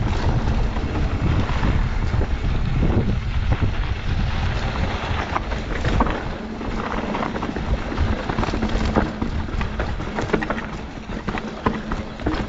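Wind buffeting the microphone of a mountain biker's camera while riding downhill, with scattered clicks and rattles from the bike over rough ground.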